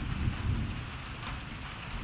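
Steady rain falling, with a low rumble of distant thunder underneath that swells briefly in the first half second.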